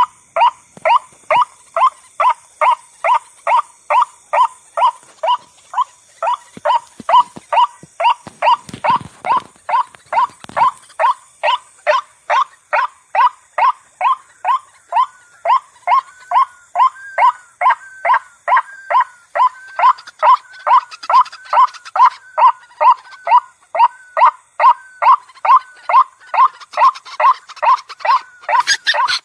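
White-breasted waterhen (ruak-ruak) calling: short pitched calls repeated in a steady, monotonous rhythm of about two to three a second, played as a bird-trapping lure call.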